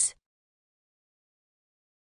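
Near silence: dead digital silence, after the last word of a synthesized voice cuts off in the first fifth of a second.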